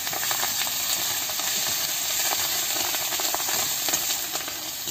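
Fresh curry leaves sizzling in hot oil in a steel wok, stirred with a metal spatula: a steady hiss with scattered small pops.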